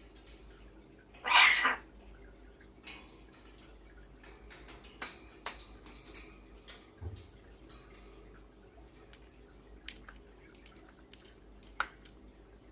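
A pet's single short, harsh cough about a second in, a pretend cough put on for attention; afterwards only a few faint clicks and ticks, with one sharper click near the end.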